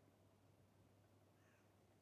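Near silence with a faint steady low hum, and one faint, short call about a second and a half in.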